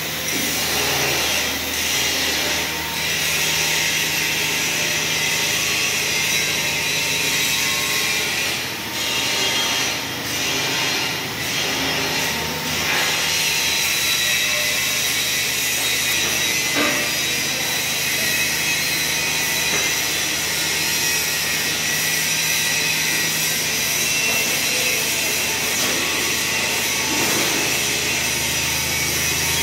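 Clay brick making machine running: a steady mechanical drone with a constant low hum under a hiss, and a few short knocks midway.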